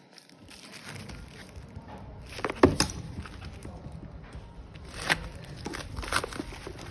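Handling noises as a parcel is unboxed: irregular rustling with a few knocks, the loudest about two and a half seconds in.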